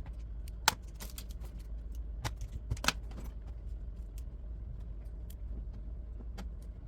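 Scattered sharp clicks and taps of plastic laptop screen-panel parts and small tools being handled and pressed into place, the loudest about a second in and near three seconds in, over a steady low hum.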